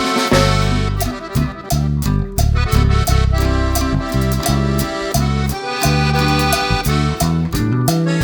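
Instrumental background music with a steady beat, an accordion-like melody and plucked strings.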